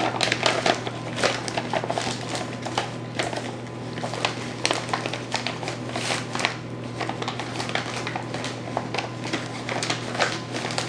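Clear plastic zip-top bag crinkling and rustling as a hand digs inside it to scoop flour, a dense run of irregular crackles.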